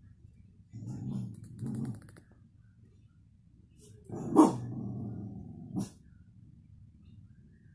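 A dog growls low twice, then gives a single loud bark about four seconds in that trails off into a growl.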